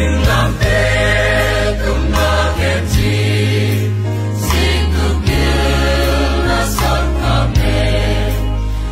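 A mixed choir of men and women singing a song in Zomi over a musical accompaniment with held bass notes.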